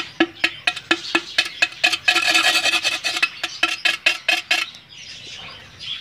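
A rod scraping and chipping at the rim of a hole in an unglazed clay pot in quick strokes, about four or five a second, with a faint ring from the pot. The strokes round and smooth the rim of the hole, and they stop near the end.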